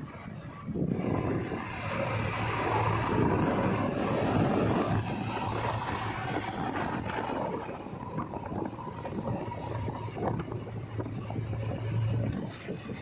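Diesel engine of heavy earthmoving machinery running steadily, picking up in level about a second in, with scattered light clatter later on.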